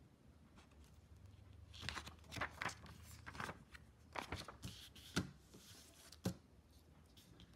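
Box and packaging being handled: a few seconds of rustling, crinkling and scraping, then two sharp clicks towards the end.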